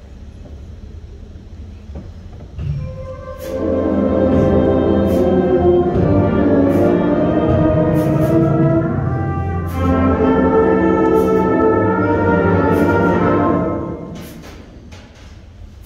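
High school concert band playing: after a couple of seconds of low room hum, the full band comes in loud with sustained chords about three and a half seconds in. The sound dips briefly in the middle, and about fourteen seconds in it falls back to quieter playing with sharp percussion taps.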